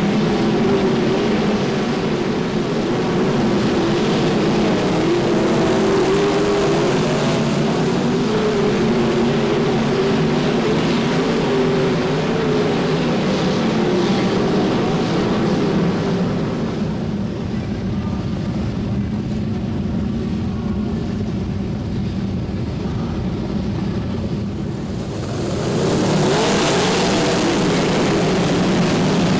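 A field of sprintcar engines rumbles at low, uneven revs while the cars circle under caution. About 25 seconds in, the engines open up together and get much louder as the pack gets on the throttle for the green-flag restart.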